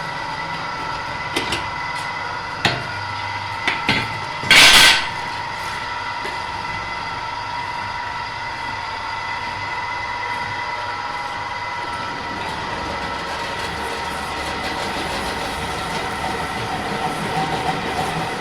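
A machine running with a steady high whine. A few sharp knocks come in the first four seconds, and a loud burst of noise about four and a half seconds in.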